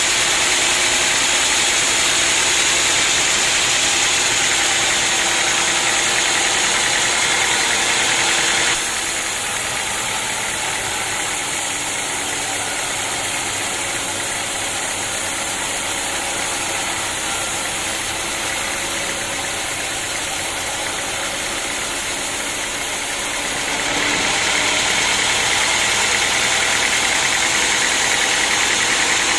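Sawmill machinery running with a steady mechanical noise and high hiss. It drops abruptly to a lower level about nine seconds in and comes back up about twenty-four seconds in.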